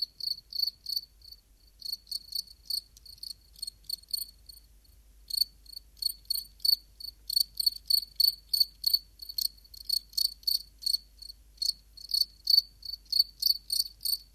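Crickets chirping: short high chirps repeating steadily, about three a second, with a brief pause about five seconds in.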